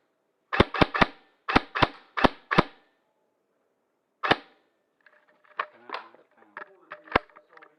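Airsoft gun firing about eight sharp shots in quick succession, one more a little later, then fainter scattered shots.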